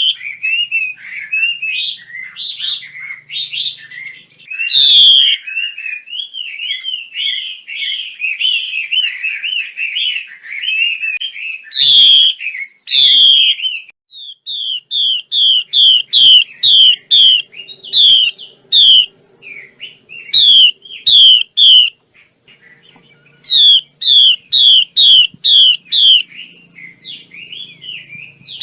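A female Chinese hwamei singing: a rapid, varied warbling phrase for about the first half, then runs of loud, repeated, down-slurred whistled notes, about two to three a second, broken by short pauses.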